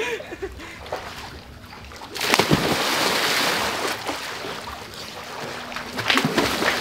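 A person in a life jacket plunging into a swimming pool: one big splash about two seconds in, then water sloshing and churning that dies away over a few seconds.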